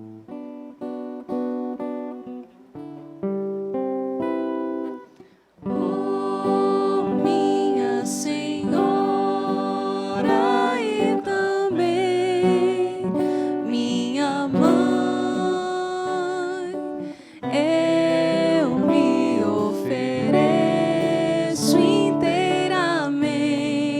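A devotional song on acoustic guitar: picked notes alone for the first few seconds, then, after a brief pause, a fuller strummed passage with singing voices from about six seconds in.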